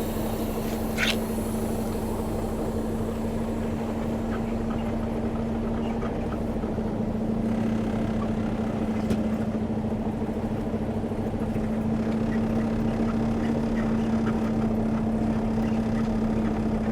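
Semi tractor's diesel engine running at a steady speed, with a constant low hum.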